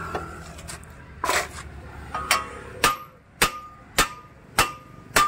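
Hammer blows knocking a stuck front brake disc off its wheel hub: seven sharp metal strikes, the first two a second apart and the rest about every 0.6 s, each with a brief metallic ring.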